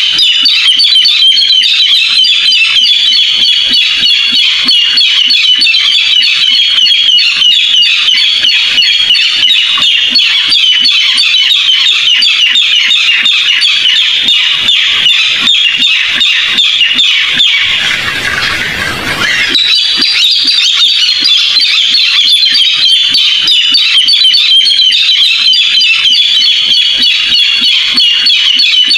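Barred rail calls: a continuous, rapid run of high, closely packed notes. The sound is loud throughout, with one brief softer dip about eighteen seconds in.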